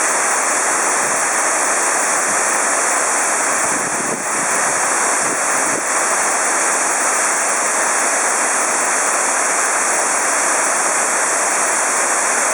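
Waterfall rushing: a loud, steady noise of falling water, dipping briefly about four and six seconds in.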